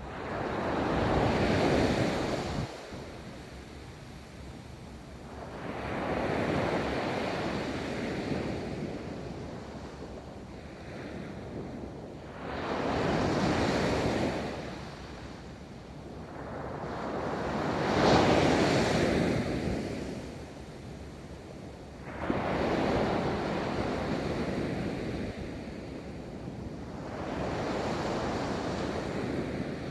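Ocean waves breaking and rolling up a beach, a new surge about every five seconds, each swelling up and then washing back down.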